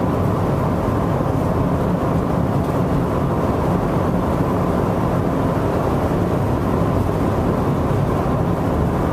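Steady road and engine noise of a moving car, heard from inside the car.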